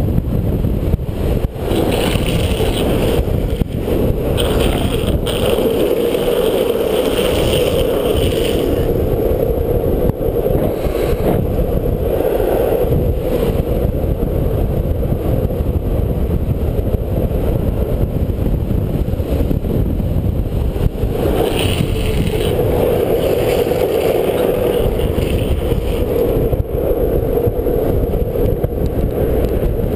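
Steady loud rush of wind on the microphone together with longboard wheels rolling over asphalt at downhill speed. Twice, for several seconds at a time, a higher hiss rises over it.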